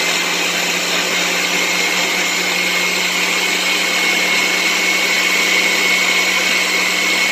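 Countertop blender motor running steadily at speed, churning juice and solid food into a thick purée, with a constant high tone over the motor hum.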